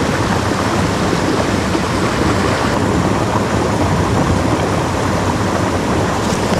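Creek water rushing over rocks in a shallow riffle close by, a steady even rush.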